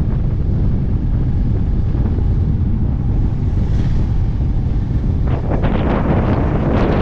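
Wind rushing over the microphone of a camera held out from a moving motorcycle, a loud, steady low rumble with the motorcycle running beneath it. From about five seconds in, sharper crackling noise joins the rumble.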